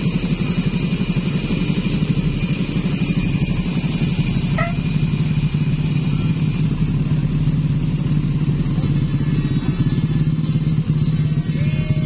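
Large tour bus's diesel engine running at low revs as the bus rolls slowly past close by, a steady low drone with a fast even pulse.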